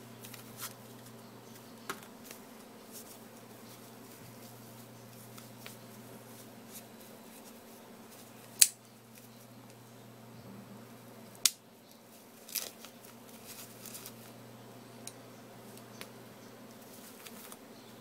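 Quiet handling sounds as a folding knife cuts away foam wrapping from a multitool: light taps and rustles, with two sharp clicks near the middle, over a steady low hum.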